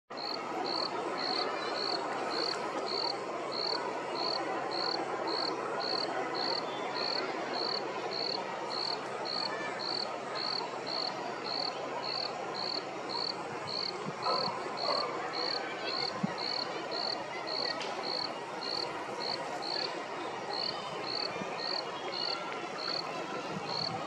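A cricket chirping in an even rhythm, about two short high chirps a second, over a steady hiss of background noise.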